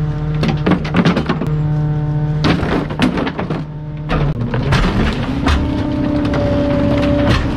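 Garbage truck compactor crushing bulky items: repeated cracking, snapping and thudding as the load breaks up, over the steady whine of the hydraulics. The whine steps up in pitch about five and a half seconds in as the truck throttles up.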